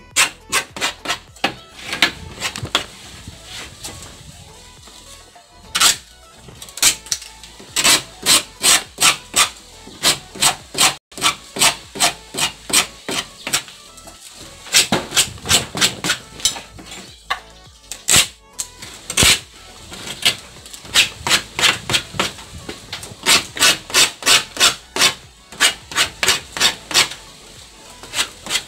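Steel hand file rasping along the edge of freshly glued Formica laminate, trimming the overhang flush with the board in quick downward strokes, about two to three a second, in runs with short pauses between them.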